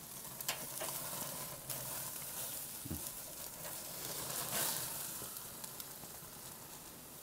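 Ribeye steaks sizzling on the grate of a charcoal grill as they are turned with tongs, with a few light clicks among the steady hiss.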